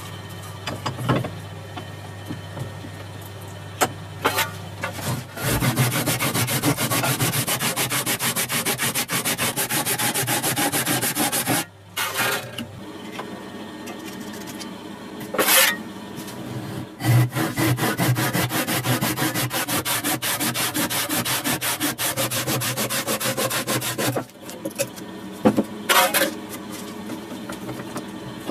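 Abrasive tool sanding or filing, most likely on the cleaver being restored. It comes in two long, even runs of about six and seven seconds, with a few short knocks and handling sounds before, between and after.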